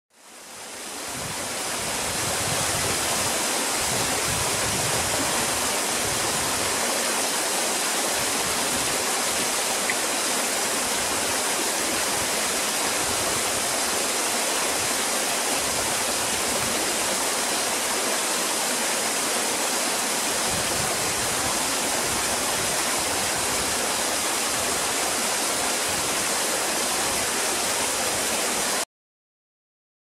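A small cascading waterfall, about 10 to 12 feet high, spilling in many thin streams down stepped rock ledges: a steady rush of falling and splashing water. It fades in over the first two seconds and cuts off suddenly near the end.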